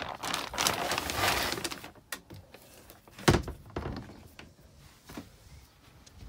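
Plastic bag crinkling and rustling for about two seconds, then one loud thump as the helm console's storage compartment door closes a little past three seconds in, followed by a few light clicks of its key lock being turned.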